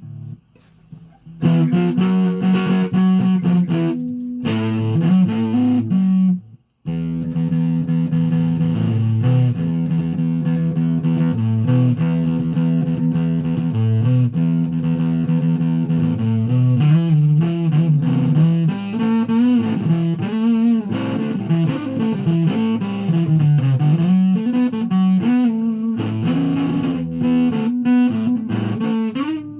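Guitar music: a plucked, likely electric guitar playing a continuous line of notes, starting about a second in, with a short break about seven seconds in.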